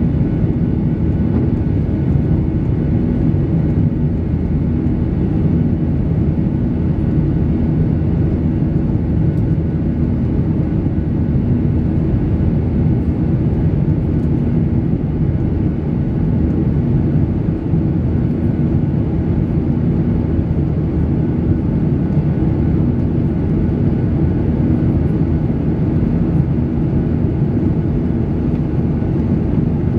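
Steady cabin noise of a Boeing 737-800 in climb: the low drone of its CFM56-7B turbofan engines and rushing airflow, with a faint steady hum and no changes.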